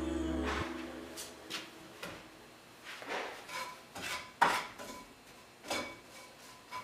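Metal utensil clinking and knocking against pots and pans on a stovetop: a series of separate clinks, some with a short ring, the loudest about four and a half seconds in.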